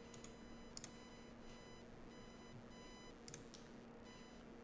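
Near silence: faint steady electrical hum and room tone, with a few faint clicks.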